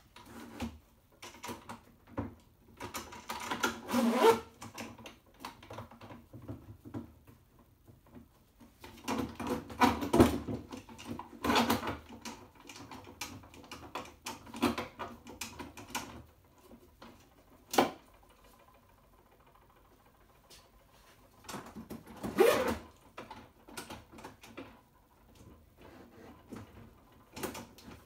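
Bar clamps being worked on a glue-up of Douglas fir boards: bouts of rattling, clicking and knocking as the clamp handles are turned and the jaws shifted against the wood, with quiet gaps between and one lone sharp click part way through.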